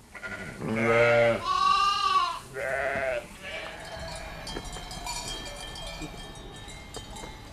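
Sheep and lambs bleating: three calls in the first three seconds or so, the middle one the loudest and highest. After that only a faint background remains.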